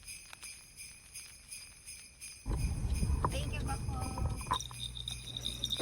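Christmas background music led by jingle bells shaking in a steady rhythm, with a lower rumbling layer joining about halfway through.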